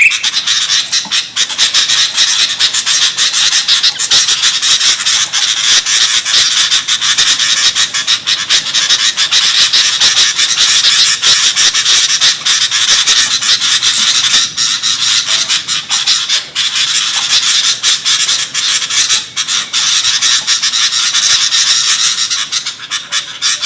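Sooty-headed bulbuls (kutilang) calling noisily: a loud, unbroken chatter of many short, overlapping calls, a lure recording for attracting wild birds.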